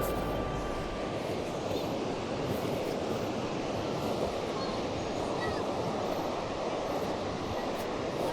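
Ocean surf washing onto a sandy beach, a steady rushing noise of waves.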